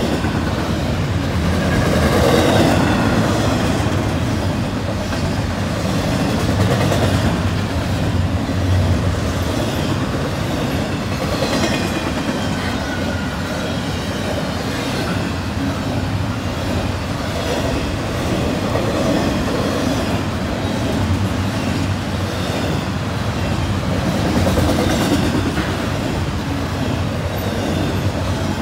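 Double-stack intermodal well cars of a fast freight train rolling past close by: a steady heavy rumble of steel wheels on rail with clickety-clack over the joints, swelling and easing as the cars go by, with a few faint squeals now and then.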